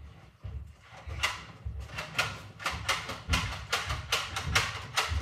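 Sharp clicks and knocks in quick, uneven succession, two or three a second, starting about a second in, each with a dull thud beneath it.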